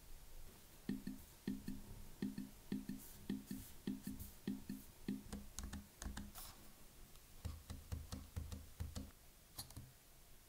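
Keys on an M1 MacBook Air's keyboard pressed one at a time, about two presses a second, each click joined by a short, hollow, knock-like tone. Then a quicker run of plain key clicks as the brightness keys are pressed.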